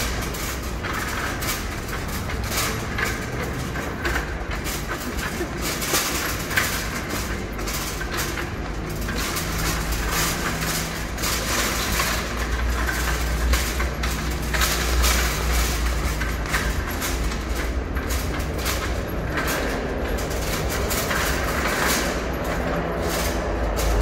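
Wire supermarket shopping cart being pushed over stone floor tiles: its casters rolling with a steady low rumble and the wire basket rattling.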